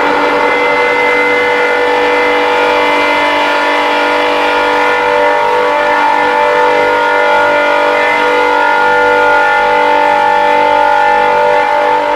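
Alert siren holding one steady, loud chord of several tones.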